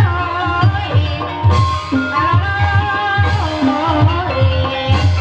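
Javanese gamelan music accompanying an ebeg dance. A low drum beats about two strokes a second under a held, wavering melody line.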